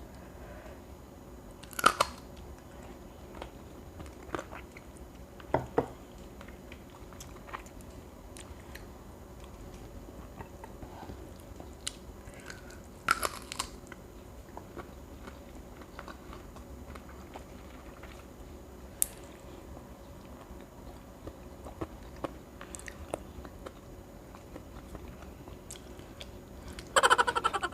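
Close-up eating sounds: grilled chicken feet being bitten and chewed, with scattered sharp crunches and mouth clicks. A louder quick run of clicks comes near the end.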